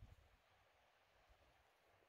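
Near silence: a faint steady hiss.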